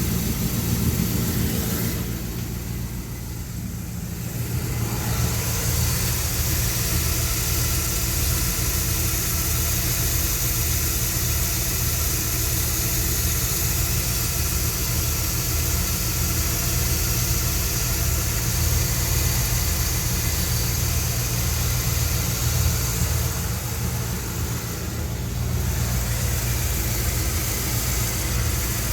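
1973 Dodge D100 truck engine idling steadily, heard up close, while a noise from around the engine is being traced. The higher part of the sound drops away briefly twice.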